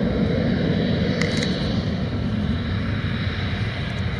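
F-35A Lightning II's single turbofan engine running at low power as the jet taxis: a steady rumble with a thin high whine, slowly fading.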